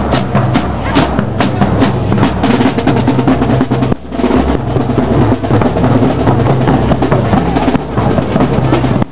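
Parade drum line playing snare and bass drums with rolls, loud and dense, with a short break about four seconds in.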